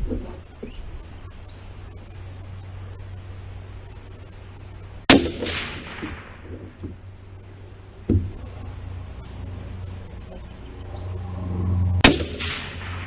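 Two rifle shots from an AR-15 with a 24-inch heavy barrel firing .223 Wylde handloads with 77-grain Sierra MatchKing bullets, about seven seconds apart, each a sharp crack with a short echoing tail. A softer knock comes between them.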